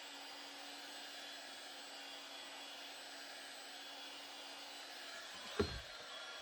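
Heat gun blowing steadily while warming Kydex for bending, with a single dull thump about five and a half seconds in.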